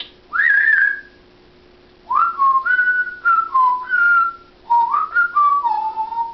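African grey parrot whistling: one short rising note, then after a pause two runs of several whistled notes stepping up and down like a tune.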